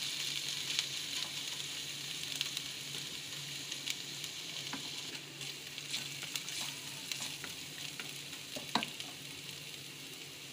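Chopped ginger and garlic sizzling in two to three tablespoons of hot oil in a wok. A spatula stirs them and clicks and scrapes against the pan now and then.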